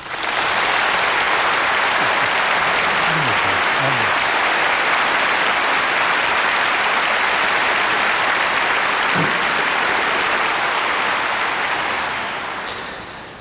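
Audience applauding, coming in at once at full strength, holding steady, then fading out near the end.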